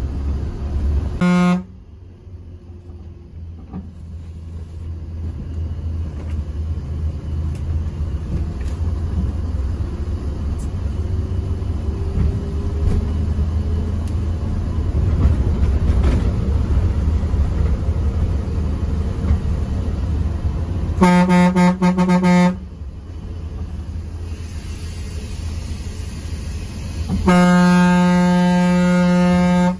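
Mercedes-Benz OH 1626 bus running on the road, its engine and road rumble building gradually over the first half. A horn with one steady note sounds three times: a short toot about a second in, a longer blast about two-thirds of the way through, and a still longer one near the end.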